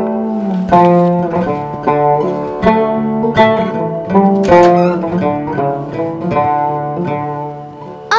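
Background music: a song with plucked strings, getting quieter near the end.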